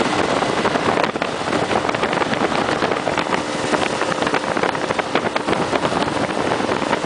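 Small motorboat's outboard motor running steadily at speed, mixed with the rush of wind over the microphone.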